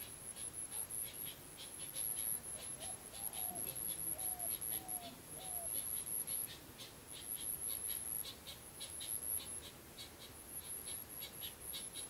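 Insects calling: a steady high drone with short chirps repeating a few times a second, and a few short low calls about three to five seconds in.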